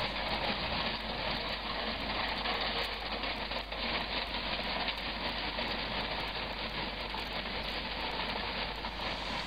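Wood pellets pouring in a steady stream from a bag into a pellet stove's hopper, an even, unbroken rush of small hard granules.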